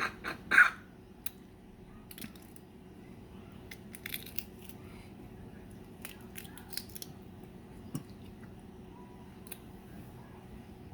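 Close-up eating sounds from a balut (boiled fertilized duck egg): a few loud short bursts in the first second, then scattered faint crackles and clicks of shell and chewing.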